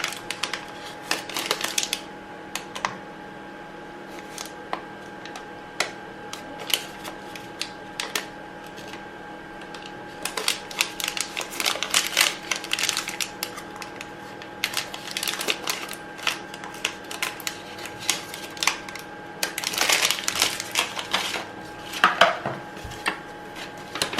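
Irregular small clicks and taps of plastic parts being handled, fitted and adjusted on a Dr. Pen A7 microneedling pen, over a steady hum.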